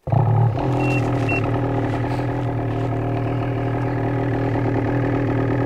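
Ski-Doo 850 Turbo snowmobile's two-stroke twin engine idling steadily just after start-up, a little louder in the first half second. Two short high beeps sound about a second in.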